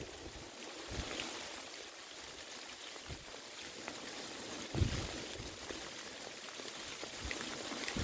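Steady hiss of rain falling, with wind buffeting the microphone now and then, the strongest gust about five seconds in.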